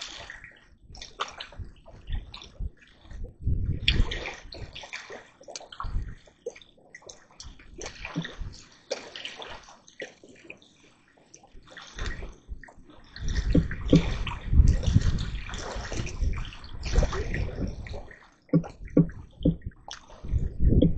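Water sloshing and splashing in irregular bursts, busiest and loudest about two thirds of the way through.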